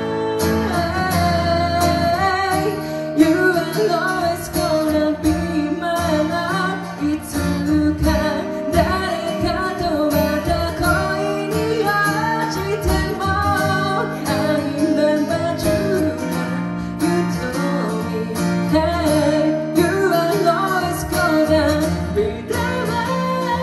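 A man singing a ballad live into a microphone, accompanied by a strummed and picked acoustic guitar.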